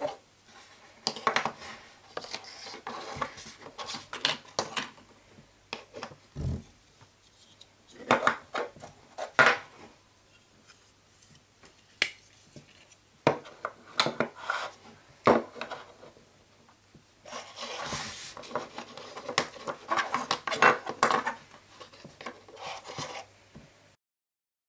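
Small plastic toy pieces being handled: sharp clicks and knocks as they are opened, snapped and set down on a tabletop, with a longer stretch of rubbing and rattling about two-thirds of the way through.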